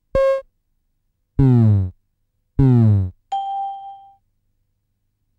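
Electronic quiz sound effects as answers are marked on a chart: a short beep as a tick appears, then two falling tones a little over a second apart as red crosses appear, and a ding that rings and fades just after three seconds in.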